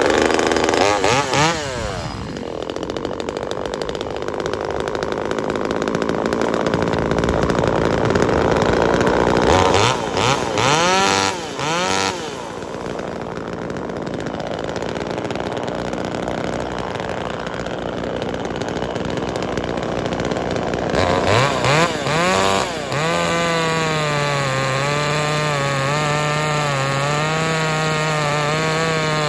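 Small two-stroke top-handle chainsaw, a Chinese clone of the Zenoah G2500, starting and running. It is revved in short blips about a second in, again around ten to twelve seconds in and around twenty-one seconds in. For the last several seconds it runs steadily at high speed with a slightly wavering pitch.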